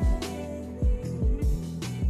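Background music: a slow beat of deep bass-drum hits that drop in pitch, under sustained chords and a melody.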